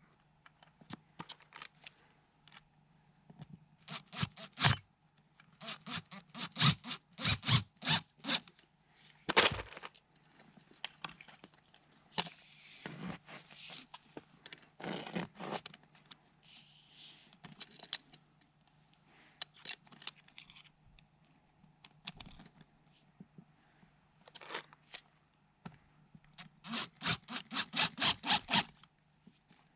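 Hand work on a wooden raised garden bed: several runs of quick scraping clicks with fainter scrapes between them, over a faint steady hum.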